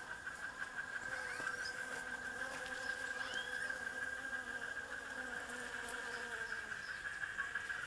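Bees buzzing around the blossoms of a flowering tree: a wavering hum, over a steady, finely pulsing high-pitched insect buzz.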